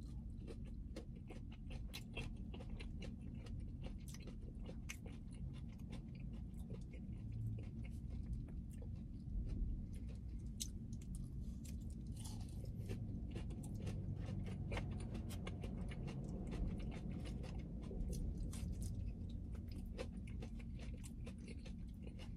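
Mouth chewing and crunching a crispy fried cauliflower bite, with many small crackling crunches throughout.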